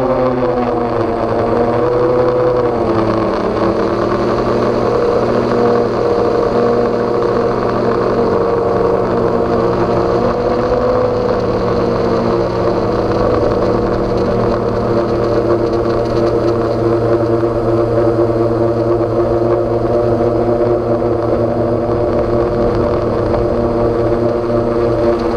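DJI Phantom quadcopter's electric motors and propellers buzzing steadily, heard from on board the drone; the pitch shifts a few seconds in and again about halfway as the motors change speed.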